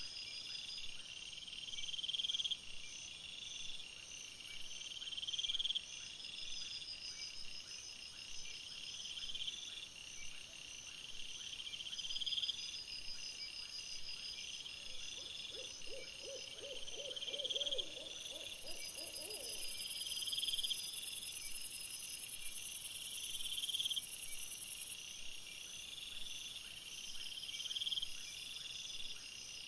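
Night chorus of crickets: a steady high trilling with a phrase that repeats about every two seconds. Around the middle a lower, rapidly pulsed call joins in for a few seconds.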